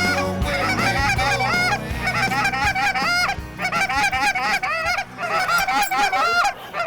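Many geese honking at once, a dense chorus of short overlapping calls that never stops.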